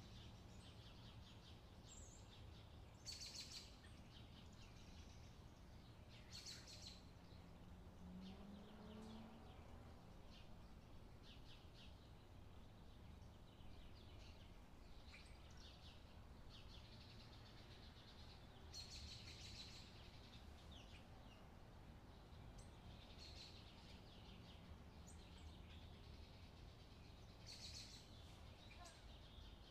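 Near silence: faint bird chirps every few seconds over a low steady hum.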